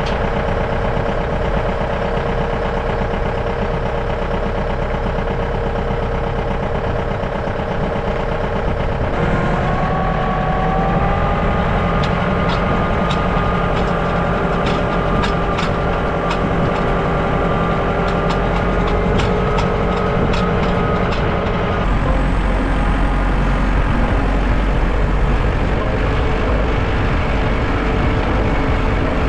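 Tractor engine running steadily. Its note shifts up about nine seconds in, a run of sharp metallic clicks comes over it for several seconds, and the note changes again around twenty-two seconds in.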